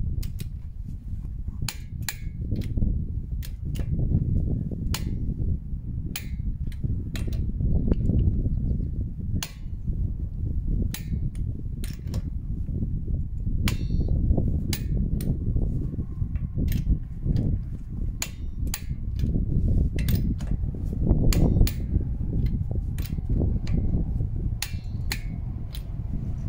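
Sharp clicks and knocks at an uneven pace of about two a second, over a steady low rumble.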